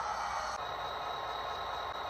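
Athearn HO-scale GP40-2 model locomotive's DCC sound decoder playing diesel locomotive sound through its small onboard speaker: a steady, hissy running sound that shifts slightly about half a second in.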